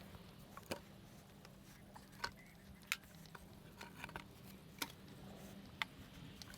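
About a dozen light clicks and knocks at irregular intervals over a steady low hum: small hard objects being handled or set down on a workshop floor or bench.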